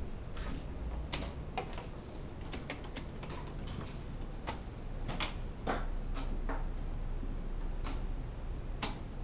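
Wooden chess pieces being set down and chess clock buttons being pressed in quick five-minute blitz games: a dozen or more sharp, irregular clicks and knocks.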